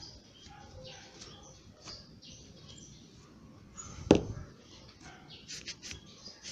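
Rusty steel pliers being handled and rubbed with a terry-cloth towel: soft rustling and small clicks, with a sharp knock about four seconds in and another at the very end.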